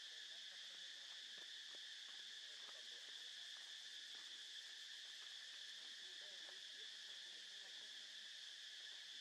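Faint, steady high-pitched drone of insects, unchanging throughout, with a few soft scattered ticks beneath it.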